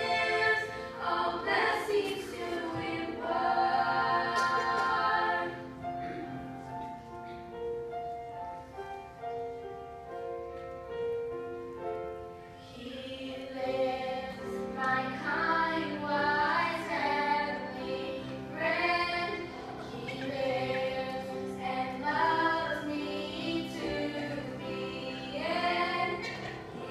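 Three women singing together, their voices blending, with a quieter stretch of held notes in the middle before the singing grows louder again.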